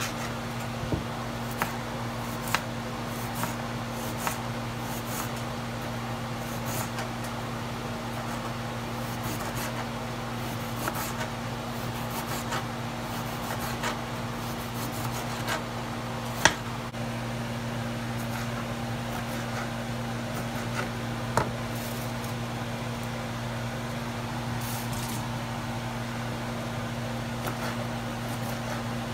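A knife slicing a red onion, then green chillies, on a plastic cutting board, the blade knocking sharply on the board now and then, most often in the first few seconds and loudest once midway. A steady mechanical hum runs underneath.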